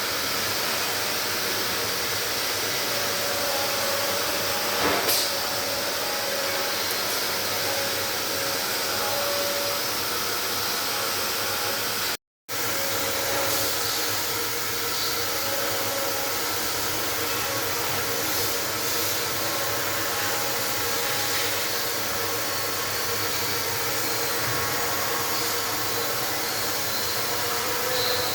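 Steady whooshing machine noise, like a fan or blower, with a few faint steady tones under it. It cuts out completely for a moment about twelve seconds in.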